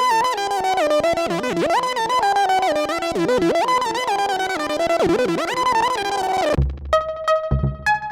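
Roland SE-02 analog monophonic synthesizer playing a lead line whose pitch glides and wavers continuously. About six and a half seconds in, the sound changes to short, repeated low bass notes with higher sustained tones over them.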